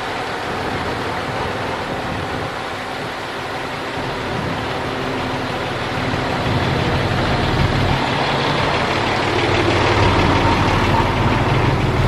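Dump truck's diesel engine running while the hydraulic hoist tips the loaded bed. The sound gets louder about six seconds in and again near the end.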